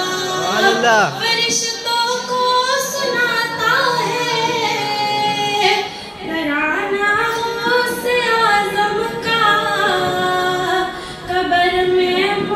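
A woman singing a manqabat, a devotional poem, unaccompanied in long held notes that bend and glide through the melody.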